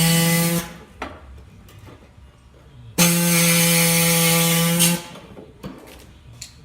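Power cutting tool cutting the car body's sheet metal: it runs in a steady, even-pitched whine with hiss, stops about half a second in, and runs again for about two seconds from three seconds in, with light metal knocks and clicks between the runs.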